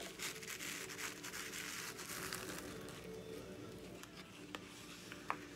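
A piece of card scraping loose glitter across a plastic garbage bag: a soft rustling scrape over the first few seconds that fades, then a couple of light taps near the end.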